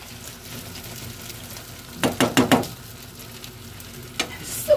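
Diced potatoes, peppers and beaten egg sizzling in a non-stick frying pan, with a metal spoon clicking against the pan several times about two seconds in and twice more near the end.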